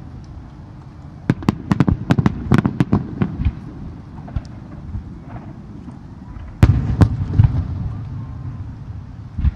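Fireworks exploding: a rapid string of sharp cracks a second or so in, then after a lull a few heavier bangs about seven seconds in, over a steady low rumble.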